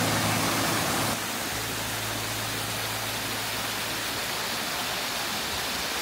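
Small waterfall and mountain stream rushing over rocks: a steady hiss. The last piano notes fade out in the first second.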